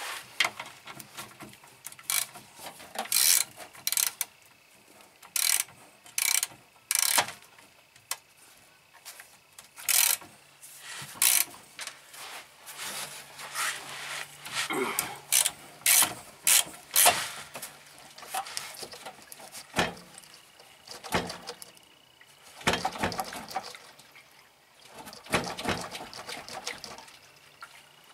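Irregular clicks and metallic clanks of hand tools, a ratchet wrench among them, working on the van, with short runs of quick ratchet clicks between single knocks.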